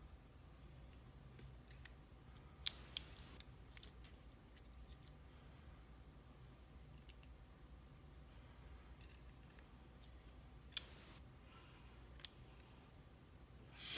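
A few faint, sharp clicks of small metal lock pins being handled and set down: a short cluster about three seconds in, then two more later. Low room hum in between.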